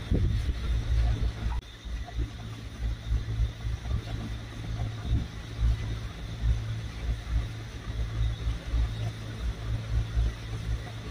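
Wind rumbling on the microphone, an uneven low rumble that swells and dips in gusts.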